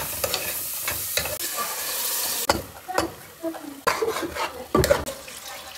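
A metal spoon stirs and scrapes inside a pressure cooker, with repeated scraping knocks against the pot. Tomatoes and spices sizzle in hot oil underneath, the sizzle strongest in the first half.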